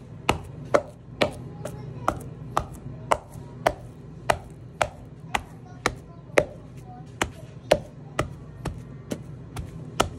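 Wooden pestle pounding cooked bananas with coconut in a wooden mortar, a steady rhythm of sharp knocks about two a second as the banana is mashed.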